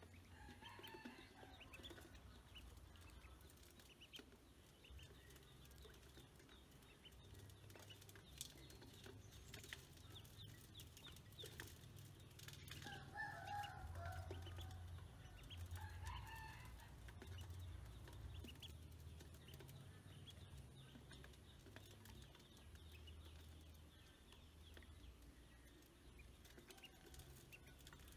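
Faint, sparse peeping of ducklings, a few short bursts of calls with the loudest about halfway through, over light ticking of bills pecking at feed in a metal basin and a low rumble underneath.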